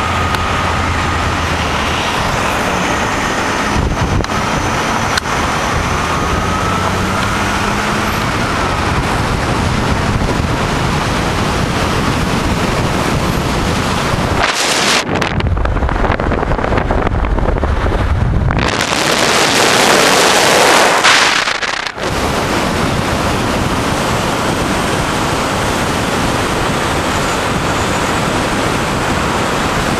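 Car driving on a mountain road, heard from inside the car: steady wind and road noise. About halfway through it briefly drops to a low rumble, then comes back as a louder rush of wind for a few seconds before settling back.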